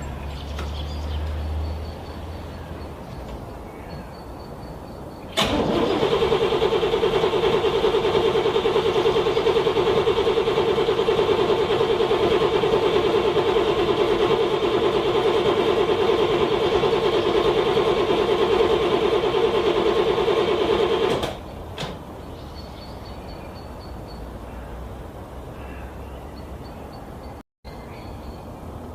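A car engine being cranked by its starter in freezing cold, struggling to start. The cranking begins about five seconds in, runs evenly for about sixteen seconds and cuts off abruptly, leaving a quieter low hum.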